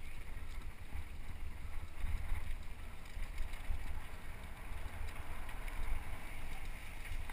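Wind buffeting the microphone of a camera mounted on a mountain bike descending a rough dirt trail: an uneven low rumble, mixed with the bike's rolling and rattling over the ground.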